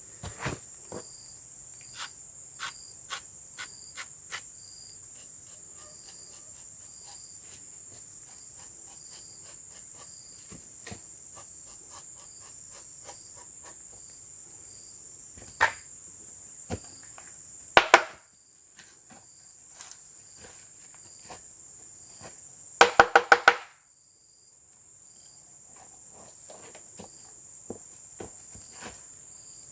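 Steady high-pitched chirring of crickets, with scattered sharp knocks throughout. The loudest are two knocks about 18 seconds in and a quick run of about five ringing knocks near 23 seconds.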